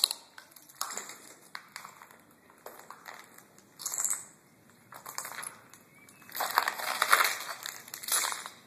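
Footsteps crunching and scuffing over debris-strewn floor and paving, with irregular clicks and rustles, and a louder spell of crunching about six to seven and a half seconds in.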